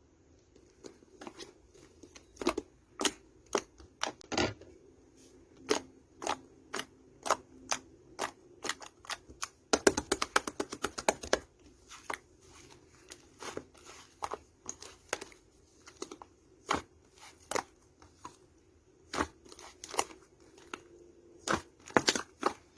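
Clay slime being pressed and poked by hand, giving sharp clicking pops at irregular intervals, with a quick run of rapid clicks about ten seconds in.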